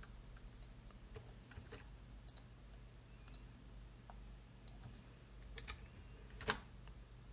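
Faint, scattered clicks of a computer mouse and keyboard while text is selected and deleted, over a low steady hum. The loudest click comes near the end.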